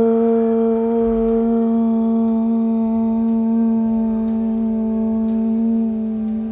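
A woman chanting one long Om on a single held note, sliding up into the pitch at the start and holding it steady, closing a yoga practice.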